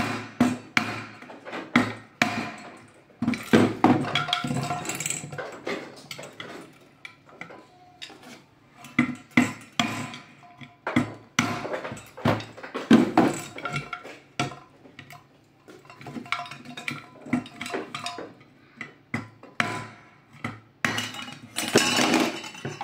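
Irregular hammer blows and metal clanks, some of them briefly ringing, as the Kärcher WD 3 vacuum cleaner's motor assembly is knocked apart.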